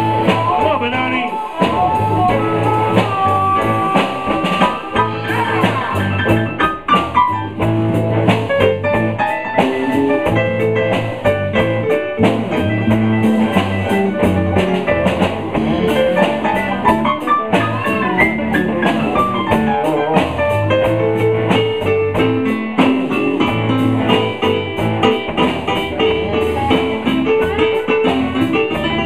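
Live blues band playing an instrumental passage, with guitar and drum kit over a steady beat.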